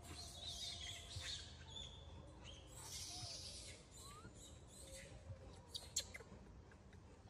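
Faint high chirping and twittering of birds, in the first two seconds and again around the middle, with a couple of sharp clicks near the end.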